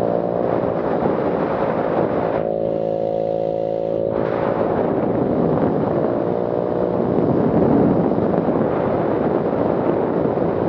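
GY6-type 139QMB four-stroke scooter engine running loud and raspy through a muffler can whose baffles and silencer are missing, an effectively unsilenced exhaust. About two and a half seconds in the rasp eases to a smoother, steadier note for a second and a half, then the harsh sound returns.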